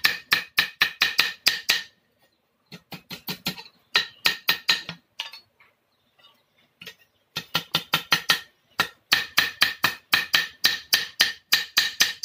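Hand hammer striking the hooked steel blade of a rubber-tapping knife on a small steel anvil plate, shaping the blade. The blows come in quick runs of about five a second, each with a bright metallic ring. There is a short break about two seconds in and a longer one of about two seconds in the middle.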